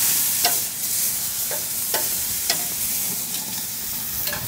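Steaks sizzling steadily on a gas grill's grates over high heat, with about half a dozen sharp clicks and pops scattered through the sizzle.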